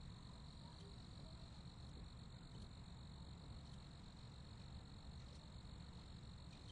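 Crickets chirping in a faint, steady high-pitched trill that holds unchanged throughout, over a low background rumble.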